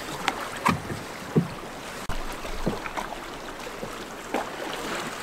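Steady rushing of a fast, swollen river, with scattered short knocks and splashes of paddles as a canoe is pushed off the bank and paddled.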